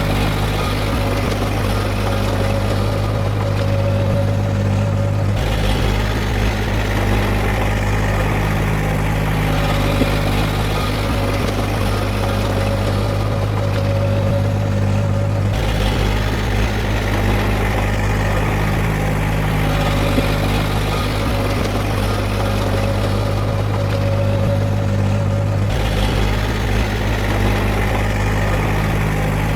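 Diesel engine of heavy earthmoving machinery running steadily, its low drone changing in tone at regular steps about every ten seconds.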